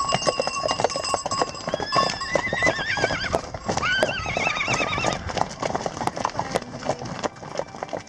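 A herd of horses running on a wet dirt road, a dense, irregular clatter of hoofbeats. One horse whinnies twice in the middle, each call wavering in pitch. The hoofbeats thin a little near the end as the herd passes.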